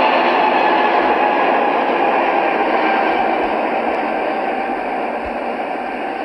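Steady rushing cabin noise of an airliner in flight, slowly fading out.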